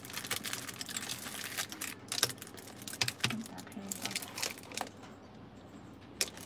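Eyeliner glue pens with rhinestone-studded casings clicking and clattering against each other as they are handled, a quick run of small clicks in the first two seconds, then scattered clicks.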